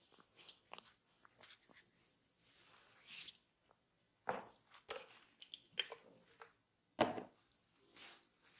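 Faint close-miked handling sounds of a barber's hands working on a client: scattered soft rubbing, squishing and light ticks, with two sharper hits about four and seven seconds in.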